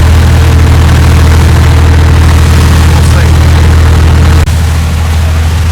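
A large fishing boat's engine running with a steady, loud low drone; about four and a half seconds in, the sound changes abruptly and drops a little.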